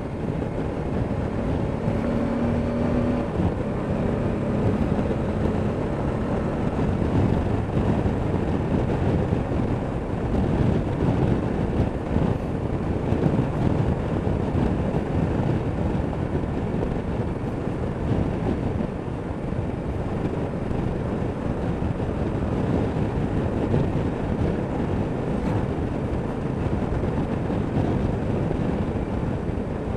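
Honda Deauville NT650V's V-twin engine running steadily while the motorcycle rides along at road speed, mixed with the rush of wind and road over the mic.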